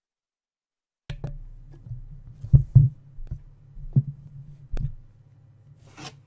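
Hands handling a cardboard box and the recording device: a series of dull knocks and bumps over a low steady hum. The sound cuts in about a second in, the two loudest knocks come close together near the middle, and a brief rustle follows near the end.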